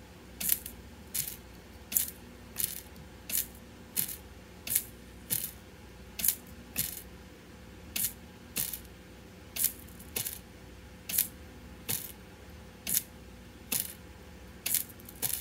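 Small steel pins in a magnet-wire coil giving short, sharp clicks, about one and a half a second and not quite evenly spaced, over a faint steady hum.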